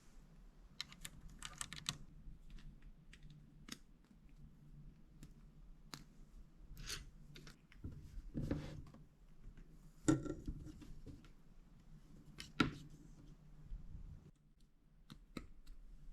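Chunbrommisam plastic building bricks being handled and pressed together: scattered light clicks and rattles, with two sharper knocks in the second half.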